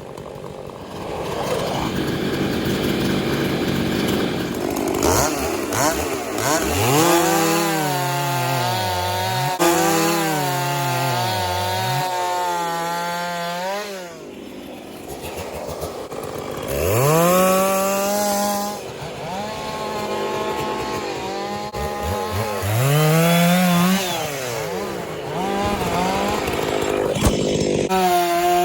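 Two-stroke chainsaw running hard, its engine pitch repeatedly sagging and climbing back as the saw loads up in the cut and is throttled up again, with a couple of brief drops toward idle.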